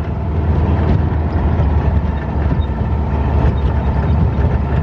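Dune buggy engine running while the buggy drives off-road, a loud, steady low rumble.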